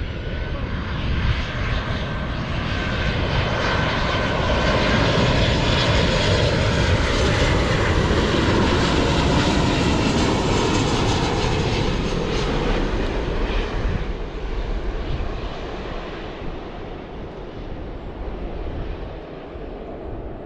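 Airliner's engines passing low along the runway: a loud engine noise that swells over the first few seconds, holds, then fades away in the second half.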